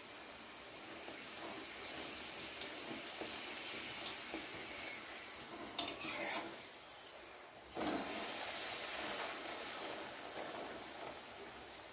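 Luchi deep-frying in hot oil in a wok: a steady sizzle of bubbling oil. A sharp tap about six seconds in as a spatula or hand works the bread, and the sizzle dips and comes back a little before eight seconds.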